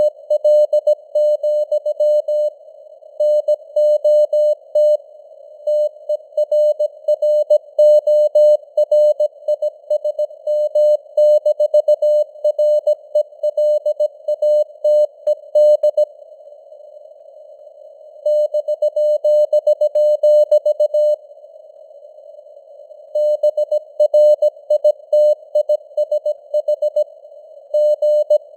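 Morse code at 17 words per minute: a single mid-pitched tone keyed on and off in dots and dashes, over a narrow band of simulated radio hiss. Twice, about halfway and about three-quarters through, the keying pauses for a couple of seconds and only the hiss remains.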